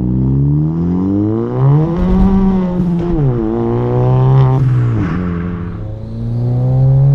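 VW Scirocco's big-turbo 1.4 TSI four-cylinder engine accelerating hard through the gears. The revs climb, drop sharply at a gear change about three seconds in, climb again, drop at another change about five seconds in, then hold fairly steady near the end.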